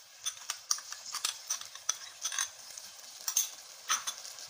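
A kadhai of sauce and vegetables being stirred over the heat. A utensil clicks and scrapes against the pan at irregular intervals, several times a second, over a faint sizzle.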